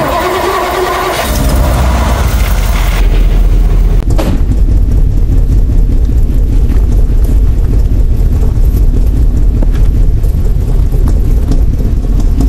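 1960 Ford Starliner's 292 Y-block V8 cranked by the starter and catching about a second in, starting right up, then running steadily and loud.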